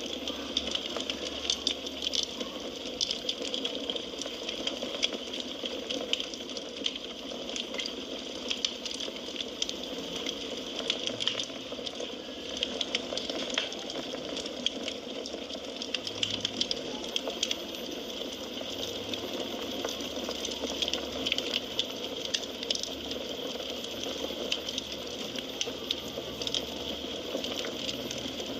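Firewood burning in a fireplace: a steady hiss of flames with frequent small, sharp crackles and pops at irregular intervals.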